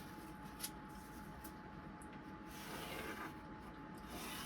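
Faint rubbing and rustling of handled material, with two light clicks near the start and a louder stretch of rubbing about two and a half seconds in, over a faint steady high hum.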